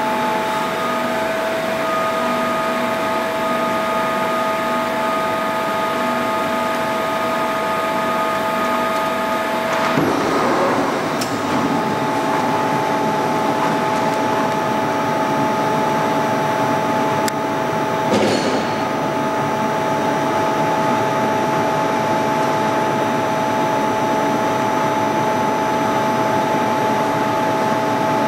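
Large CNC portal milling machine running under power: a steady mechanical hum with several steady whines. About ten seconds in, one whine gives way to another with a clunk, and a second clunk comes about eighteen seconds in.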